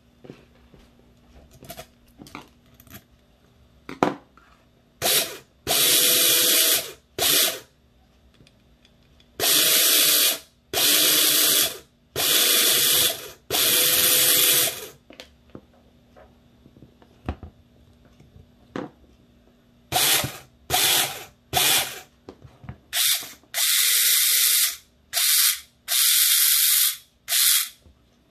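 Airsoft AEG motor pulsed in short bursts, spinning the freshly shimmed helical gear set of a partly assembled Version 3 gearbox. There are about fifteen sharp whirring runs, some a fraction of a second and others over a second long, in two clusters separated by a few seconds' pause.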